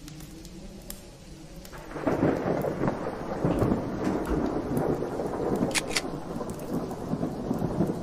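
A loud rumbling, crackling noise sets in suddenly about two seconds in and carries on steadily, with two sharp clicks close together near six seconds.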